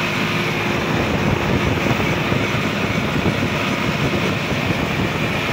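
Sonalika DI-50 RX tractor's diesel engine running steadily as the tractor drives along a road, heard from the driver's seat with road and wind noise.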